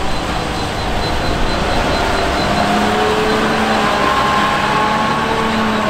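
Hidromek HMK 640 wheel loader's diesel engine running steadily as the machine drives with a full bucket of gravel, with a faint whine that rises gently in pitch about halfway through.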